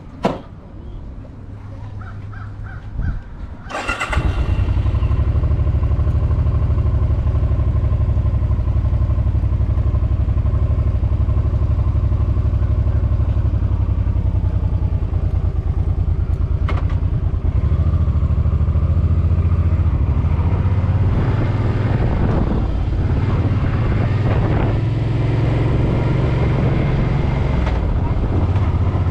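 Suzuki Boulevard M50 V-twin motorcycle engine starting up about four seconds in, then running loud as the bike rides off, its note changing several times later on.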